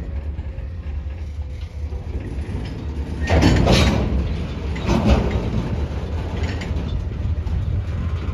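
Freight cars of a slow-moving train rolling through a rail yard, a flatcar loaded with lumber among them, with a steady low rumble. The wheel noise swells louder twice: for under a second about three seconds in, and briefly again about five seconds in.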